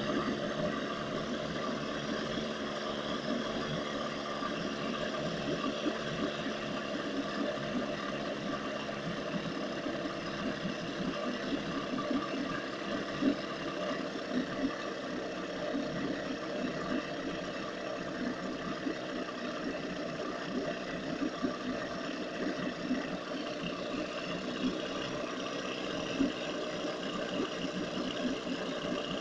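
1980 Johnson 7.5 hp two-stroke twin-cylinder outboard motor running steadily with its cowling off, its leg in a water-filled test tank. It is a former non-runner now running.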